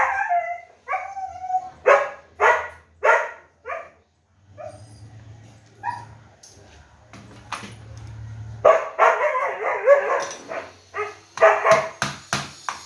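A dog barking: a run of short barks in quick succession a couple of seconds in, then more barking from about nine seconds in.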